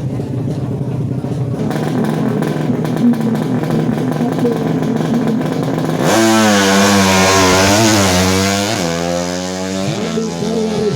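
Drag-racing motorcycle engine, a tuned 200cc four-stroke. It runs steadily for about six seconds, then comes in much louder at full throttle, the pitch dipping twice as it shifts gears before fading.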